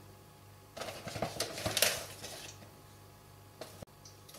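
Light kitchen handling noises: a cluster of irregular clicks and rustles around a glass bowl on a kitchen scale, starting about a second in and lasting roughly two seconds, then two small clicks near the end.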